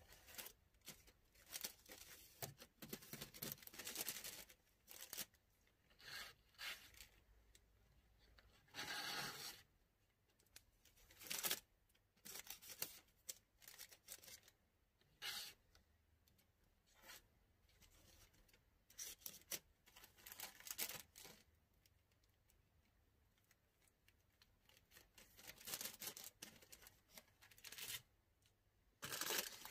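Incense sticks handled and slid into thin clear plastic bags: intermittent crinkling and rustling of the plastic with brief scrapes of the sticks, in short irregular bursts with quiet gaps between.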